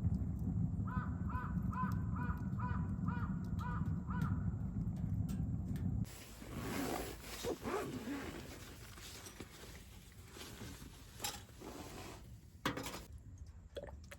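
A crow cawing about eight times in quick succession over a steady low rumble. About six seconds in the rumble stops, leaving quieter scattered clicks and knocks.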